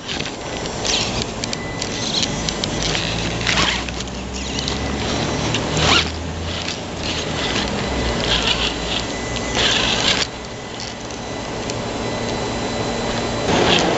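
The electric motor and geared drivetrain of a 1/10-scale RC rock crawler whine as it creeps over rocks, the whine shifting in pitch. Tyres scrabble on stone, and there are several sharp knocks as the truck climbs.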